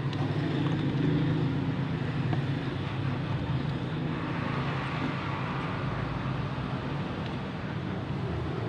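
A steady low motor rumble.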